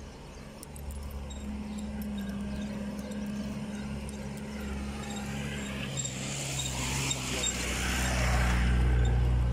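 Motor-vehicle traffic: a steady low engine hum, then a vehicle drives past close by, its engine and tyre noise building to a peak near the end before easing.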